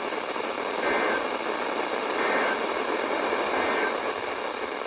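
Steady hiss with faint short tones about a second in, a little after two seconds and near four seconds.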